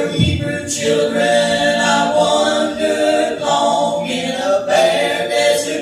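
Gospel singing by a small group of voices in harmony, holding long notes and moving from note to note.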